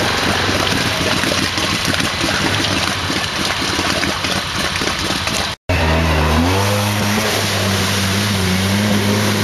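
ATV engine revving hard as the quad churns through deep muddy water, with rough splashing noise. The sound cuts out for an instant a little over halfway. Then an ATV engine is heard running at steady high revs, a level droning tone, as a second quad pushes through the mud.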